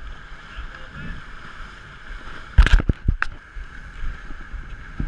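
Steady rush of wind and water from an Ultra 30 sailboat moving fast under sail, with a quick cluster of loud knocks about two and a half seconds in.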